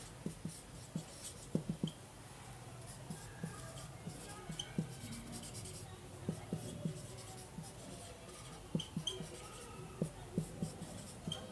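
Handwriting: soft, irregular taps and scratches of a pen on the writing surface, a few strokes each second.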